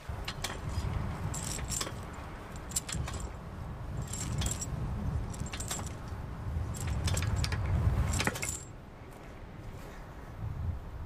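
Metal swing chains clinking and jangling in groups as a playground swing moves, stopping about eight seconds in. Under them, a heavy low rumble of wind on the microphone.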